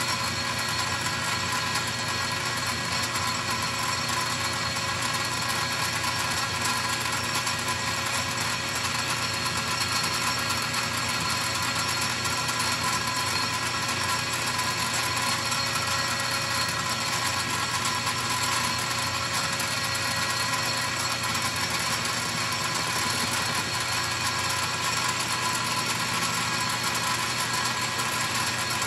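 Metal lathe running steadily while taking a light cut off the base of a Husqvarna 346XP chainsaw cylinder: a continuous whine of several steady tones over a hiss, unchanging throughout.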